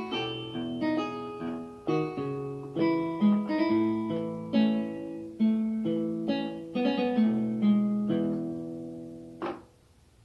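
Guitar playing the closing chords of a song, each chord struck and left ringing, with no singing over it. The playing fades and ends with a last short stroke about nine and a half seconds in.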